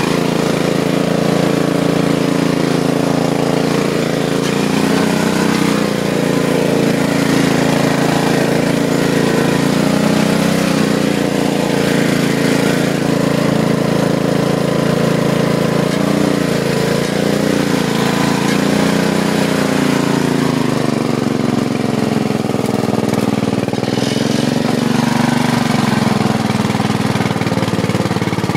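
Riding lawn mower engine running under load as the mower churns through deep mud, its note wavering up and down and dropping lower about two-thirds of the way through.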